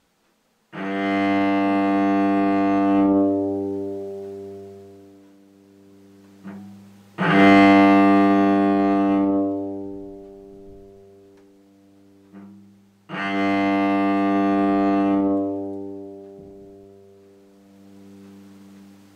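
Cello playing three long bowed notes on the open G string, each held about three seconds and then left to ring and fade as the bow lifts off between strokes.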